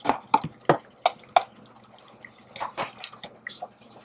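Thick tomato sauce plopping into a stainless saucepan as it is scraped out of a plastic tub with a wooden spoon: a string of short wet plops that thins out after about a second and a half, followed by a few faint scrapes and taps.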